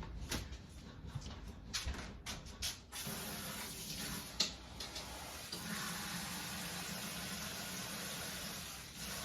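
Cold water running from a kitchen tap, a steady rush that starts about three seconds in, after a few light clicks and knocks of handling.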